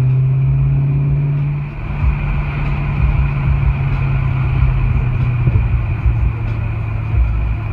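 A 2015 Camaro SS's 6.2-litre V8, fitted with aftermarket headers and high-flow cats, running steadily at idle. The engine note is slightly higher and louder at first, then settles lower about two seconds in.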